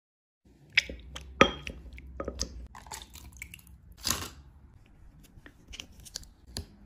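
Close-up food-prep handling sounds: sharp taps and knocks of glass and plastic tableware. About four seconds in, liquid pours briefly into a plastic cup. Near the end, the foil lid of a Yakult bottle crinkles as it is peeled off.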